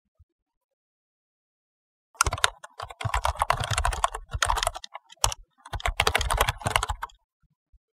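Rapid computer-keyboard typing: a dense run of key clicks that starts about two seconds in and goes on for about five seconds, with a brief break in the middle.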